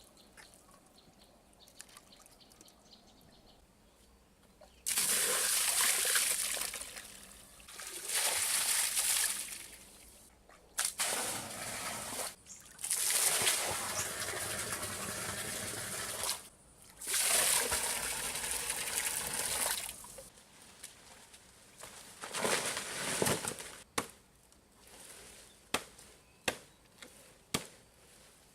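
Water splashing and pouring in about five loud bursts of one to three seconds each, starting about five seconds in. Quieter drips and small ticks follow near the end.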